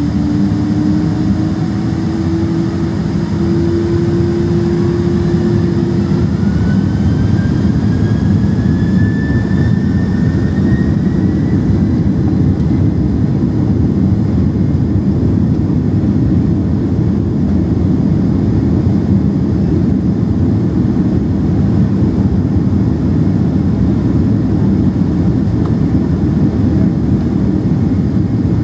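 Boeing 767-300ER's turbofan engines spooling up to takeoff thrust, heard from inside the cabin beside the engine. Whines rise in pitch over roughly the first ten seconds, under a dense, steady roar as the jet accelerates down the runway.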